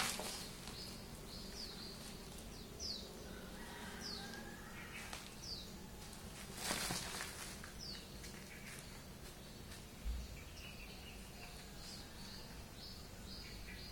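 Short, high, falling bird chirps repeat every second or so over a low steady hum. A brief rustle about seven seconds in comes as two cats wrestle on a woven plastic sack.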